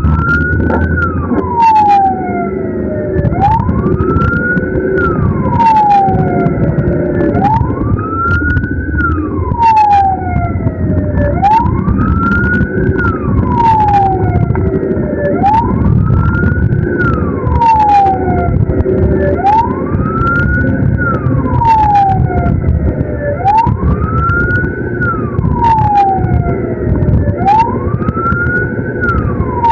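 Ambulance siren sounding a slow wail, rising and then falling about every four seconds, over steady low engine and road rumble.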